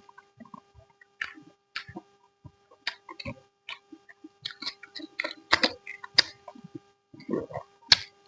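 Eating sounds: irregular wet clicks and smacks of chewing and mouth noises, a few a second, over a faint steady hum.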